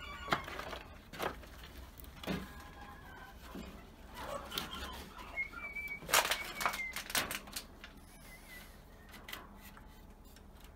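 Scattered knocks and taps of a wooden door frame being handled and fitted against a wooden coop frame, the loudest cluster about six to seven seconds in. A few short high chirps come in between.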